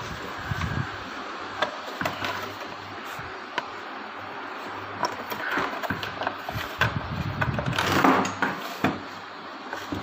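Plastic wall-fan housing parts being handled and fitted together: scattered light clicks and knocks, with a louder scraping rustle about eight seconds in, over a faint low hum.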